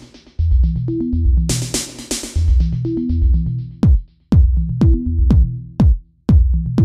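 Electronic dance music with a drum-machine beat, a repeating synth bass line and short synth stabs. About four seconds in, punchy kick drums that drop in pitch join, about two a second.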